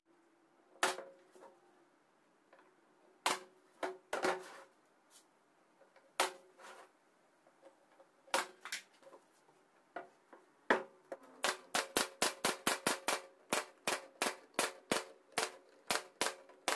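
A series of sharp knocks: a few spaced strikes at first, then a quick, even run of about three strikes a second through the second half.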